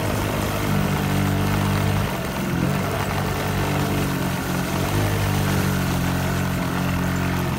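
A small vehicle engine running steadily, its pitch shifting a little as the throttle changes.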